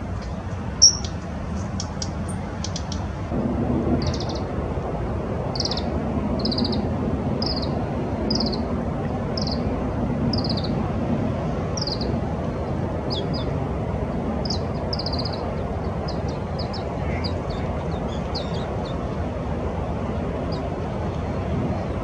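A small songbird calling: a short, thin high note repeated about once a second, giving way after the middle to quicker clusters of short notes. The calls sit over steady low background noise, with one sharp high note about a second in.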